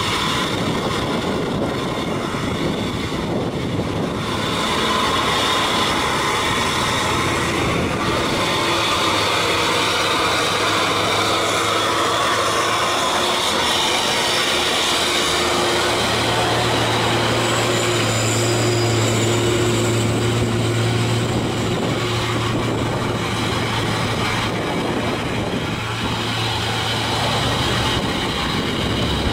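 Diesel engine of a heavy Mitsubishi Fuso dump truck labouring up a steep grade at low speed, a steady deep drone with body and chassis rattle. The engine note grows stronger about halfway through.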